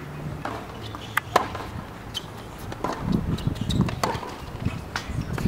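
Tennis ball bounced on a hard court before a serve, then sharp racket hits as the point is played, each a single crisp knock, a few at a time with gaps between. A low rumble comes in underneath from about three seconds in.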